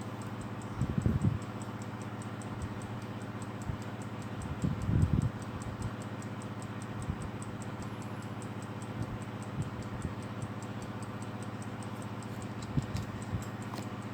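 Slava mechanical alarm clock ticking fast and steadily, with a couple of low bumps about a second and five seconds in.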